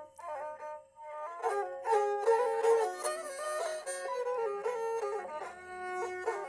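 Nepali sarangi, a bowed folk fiddle, playing a stepwise folk melody, with a short break just after the start.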